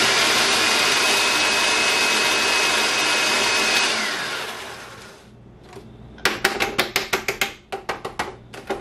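Food processor motor running at speed with a steady high whine, grinding pork rinds into fine crumbs; it shuts off a little under four seconds in and winds down over about a second. Near the end comes a quick run of clicks and rattles.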